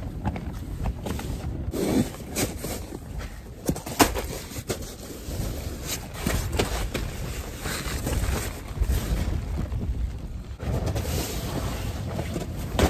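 Strong wind rumbling on the microphone, with repeated short rustles and flaps of tent fabric and gear being handled.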